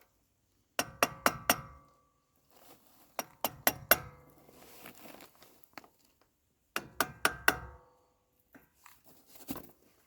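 Hammer blows ringing on steel, in three quick runs of about four strikes each, with a few lighter knocks between: pounding to free the seized front wheel hub bearing.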